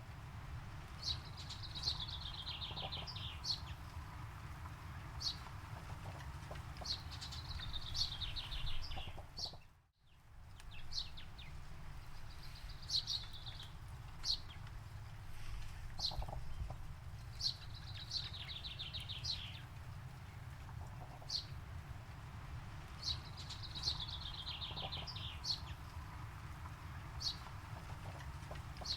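A songbird repeating one phrase every few seconds: a sharp high note, then a fast trill of notes that falls in pitch. A steady low rumble runs underneath, and the sound cuts out briefly about ten seconds in.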